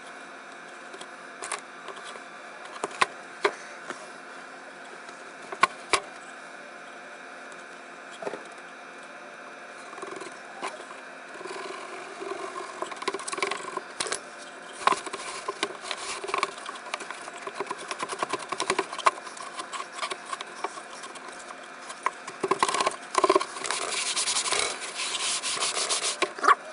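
Hands rubbing and scraping on a wooden toolbox, with scattered taps and knocks at first; from about halfway the rubbing becomes more continuous, with a harsher scraping stretch near the end.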